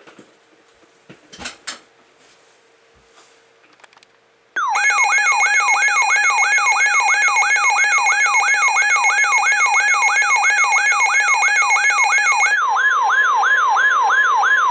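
Electronic emergency alert tone that starts abruptly and loud after a few seconds of faint clicks. It is a fast warbling sweep, about two and a half cycles a second, over a steady tone. Near the end the steady tone shifts higher while the warble continues.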